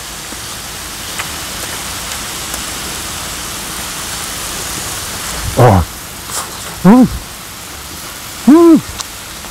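A man eating and humming "mm" with pleasure while he chews, three short hums that rise and fall in pitch in the second half, over a steady hiss.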